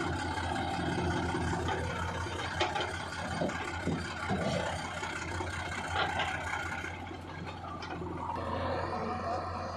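JCB 3DX backhoe loader's diesel engine running steadily as it works, with a few sharp knocks and clatter.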